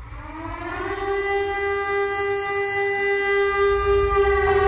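Civil defense siren winding up: its pitch rises over about the first second, then holds as a steady wail that grows louder, over a low rumble.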